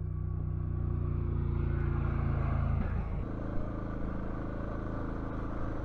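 Motorcycle engine running steadily at low road speed, heard from the bike's own mount, with a haze of tyre and gravel noise. The engine note shifts slightly about three seconds in.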